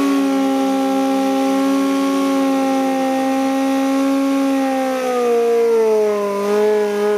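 Kawasaki Z1 drag bike's 1197cc air-cooled inline-four held at high revs through a burnout, the rear tyre spinning against the pad. A steady, high engine note that sags a little in pitch about five seconds in, with small dips near the end.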